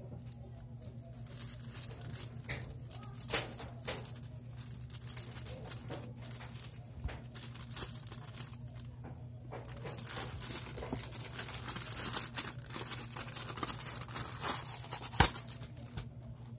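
A plastic courier mailer pouch being cut and torn open, with crinkling and rustling of the plastic that gets busier in the second half. A single sharp click near the end is the loudest sound, over a steady low hum.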